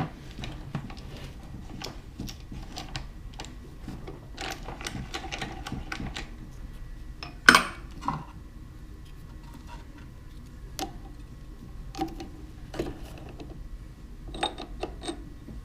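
Metal clicks and knocks of a shaft being taken off a mini lathe by hand, with the lathe switched off. One loud metal clank about seven and a half seconds in rings on faintly.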